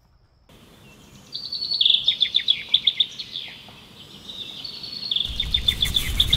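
A wild songbird calling in quick runs of sharp, high chirps. A steady low rumble starts suddenly near the end.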